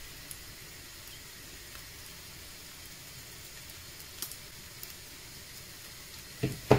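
Thin pancake batter with bacon strips frying in a pan: a steady faint sizzle with a few light ticks, and a short thump near the end.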